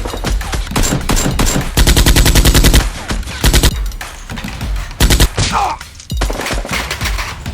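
Gunfire in automatic bursts. About two seconds in comes a rapid burst of roughly a dozen shots a second lasting about a second, with shorter bursts and single shots before and after it.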